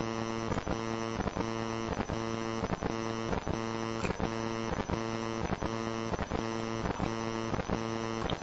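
Steady electrical mains hum with a buzz, broken by regular clicks about two and a half times a second.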